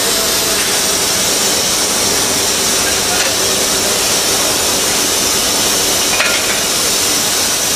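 Banker locomotive being detached at a station platform: a steady loud hiss of air and running machinery, with a faint click or two.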